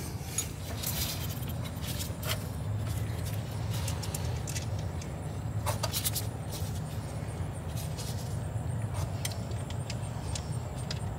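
Scattered light metallic clicks and rattles of a bolt and hand tools being handled in a car's engine bay, over a steady low hum.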